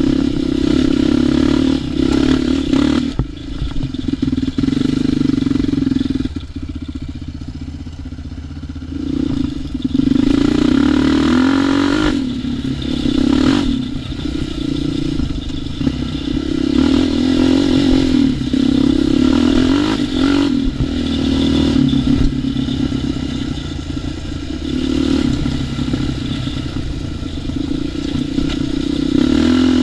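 ATV engine running hard along a trail, revving up and down with the throttle. It backs off for several seconds early on and picks up again about ten seconds in, with occasional knocks and rattles from the machine over rough ground.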